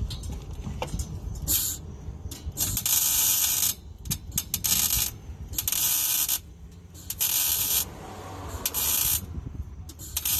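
Welding arc crackling in about six short bursts, each under a second to about a second long, as tack welds are laid on a steel exhaust pipe.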